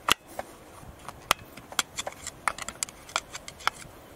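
Screwdriver pushing a rag down the empty injector bore of a Kia 2.0 CRDi diesel cylinder head to clean the injector seat. It makes a string of irregular sharp clicks and ticks as the metal tip knocks and scrapes inside the bore.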